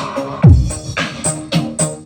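Electronic dance music with a steady beat and a deep bass hit that drops in pitch about half a second in.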